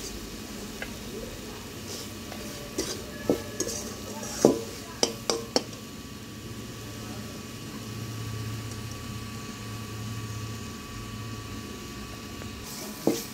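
Steel spatula stirring thick spice paste in a metal kadai, scraping and knocking against the pan, with a few sharp clinks about three to six seconds in and another near the end.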